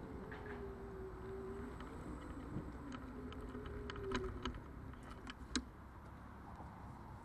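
Faint whine of the Xiaomi Mijia M365 electric scooter's hub motor, its pitch wavering with speed over a low road rumble, picked up by an action camera mounted on the scooter. The whine dies away about four and a half seconds in as the scooter comes to a stop. Several sharp clicks and rattles follow, the loudest about five and a half seconds in.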